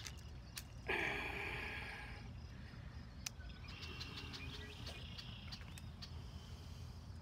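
Faint early-morning pond-side ambience: a steady low hum with scattered small clicks and short bird chirps. About a second in comes a louder rustling noise that fades over a second or so.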